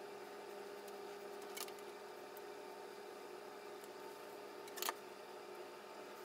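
A steady low hum with a sharp plastic click about a second and a half in and a louder one near five seconds in, as a flat iron and comb are handled in straightening hair.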